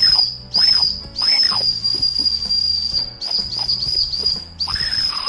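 Small plastic toy whistle with a pinwheel on its front, blown in a string of blasts: a steady, high-pitched whistle, first a few longer blows, then a quick run of about five short toots, then one long blow near the end.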